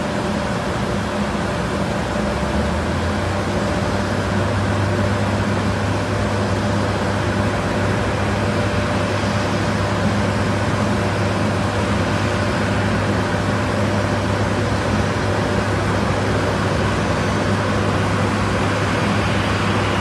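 Steady drone of engines: airport crash-rescue fire trucks running their water pumps for the water arch, with the idling jet engines of the taxiing Southwest Boeing 737. A low hum steps up in pitch about two and a half seconds in, then holds steady.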